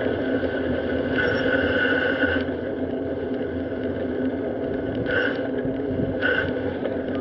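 Steady wind and road noise from a bicycle being ridden. A high whine comes and goes: it runs for over a second about a second in, then sounds twice briefly near the end.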